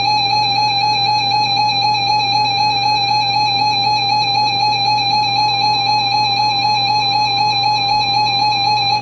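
Emergency Alert System attention signal: a loud, steady, buzzy electronic alarm tone, held unbroken, warning that an emergency message is about to follow. It cuts off abruptly at the end.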